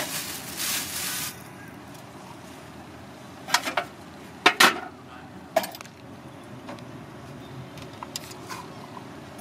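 A plastic bag of fried tofu rustling for about a second, then several sharp clinks in quick clusters around the middle, over steady street background noise.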